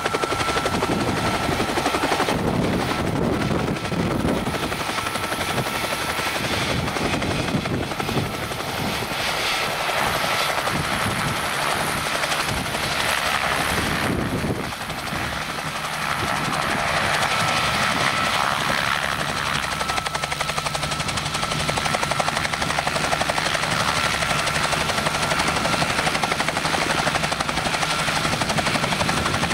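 Bell 47 helicopter hovering low, its piston engine running and two-bladed main rotor beating steadily. The sound dips briefly about halfway through.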